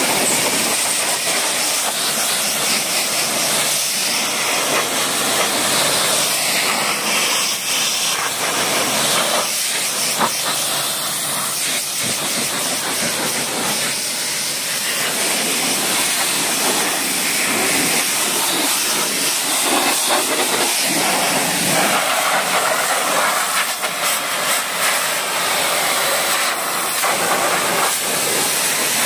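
Pressure-washer lance spraying a high-pressure water jet onto a car's body and wheel: a steady hiss of spray on the panels.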